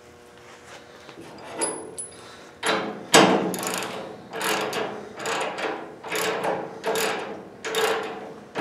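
Hand ratchet wrench with a socket being worked on a go-kart spindle bolt. After a few light clinks as the socket goes on, it ratchets in a steady run of strokes, about one every three-quarters of a second, from about three seconds in.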